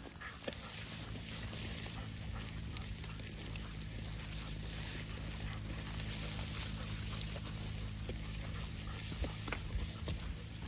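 A dog-training whistle blown at a springer spaniel: short high double toots, repeated a few times, then one longer blast about nine seconds in.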